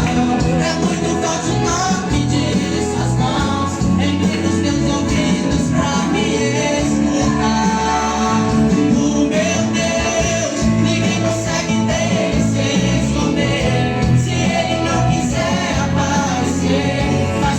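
Brazilian gospel worship song: a singer over guitar and band accompaniment, playing steadily throughout.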